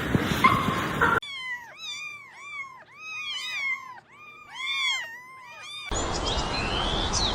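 Cats meowing over and over: a quick run of high-pitched meows, each rising then falling, some overlapping one another as if from more than one cat.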